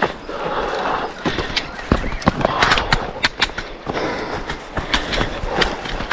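A trail runner's footsteps: irregular thuds, about two to three a second, over a steady noise.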